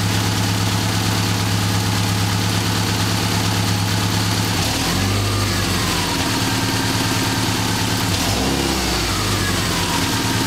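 Subaru Impreza 2.5 RS's EJ25 flat-four with a freshly fitted AVO turbo kit, idling steadily, with two brief throttle blips about halfway through and again about four-fifths in. It runs much louder than normal because two exhaust bolts are loose.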